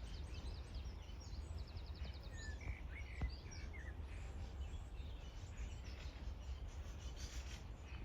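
Small birds chirping faintly, with a short rapid trill about a second and a half in, over a steady low rumble.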